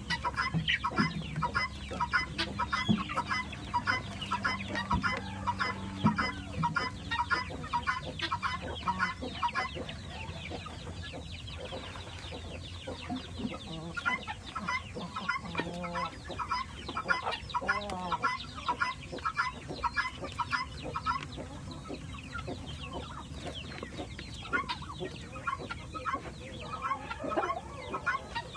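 A flock of chickens clucking continuously, many short calls overlapping. A few longer, drawn-out calls stand out in the middle.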